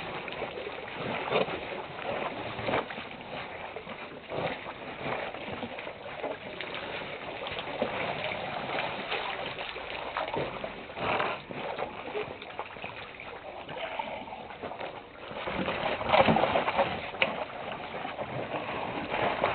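Elephants drinking at a waterhole: irregular splashing and sloshing of water as trunks draw it up and squirt it into mouths, with a louder splashy spell about sixteen seconds in.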